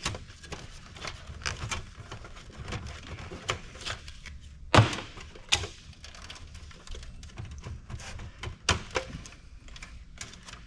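Scattered clicks and knocks of cables and parts being handled and pulled inside an old desktop PC's steel case, the loudest knock a little under five seconds in.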